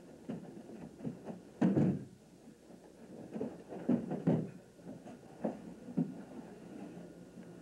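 Dull thuds of aikido partners falling onto padded mats, with feet stepping on the mats, several knocks in a row. The loudest come just before two seconds in and around four seconds in.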